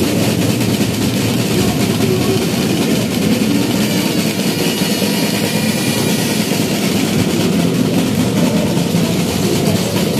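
Marching band drum line of snare and larger marching drums playing a fast, steady, continuous beat.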